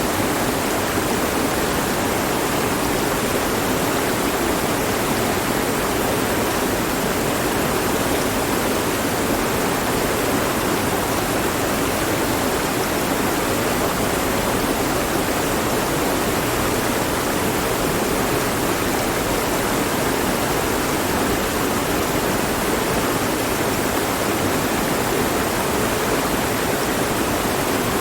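Mountain stream flowing over rocks: a steady, even rush of running water.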